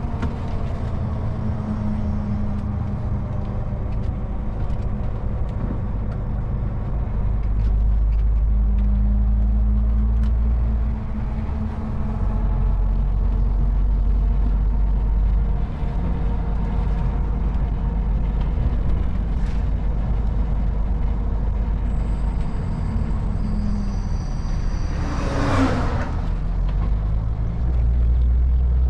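Cab-interior drone of a MAN TGX 440 truck's straight-six diesel running on the road, its note and load shifting a few times. A short burst of air hiss comes a few seconds before the end.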